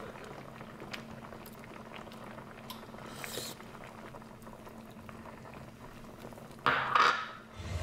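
Korean army stew bubbling at a simmer in a frying pan, with scattered small pops over a faint steady hum. Near the end a wooden spoon stirs through the stew, giving a short louder slosh and scrape.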